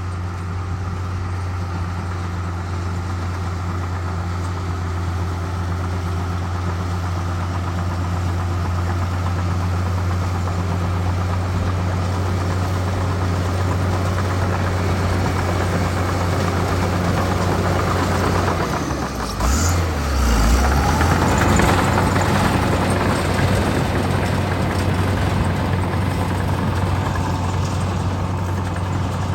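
Diesel engine of heavy road-construction machinery running steadily with a deep hum. About two-thirds of the way through, it briefly dips and then gets louder and harsher for a few seconds before settling back.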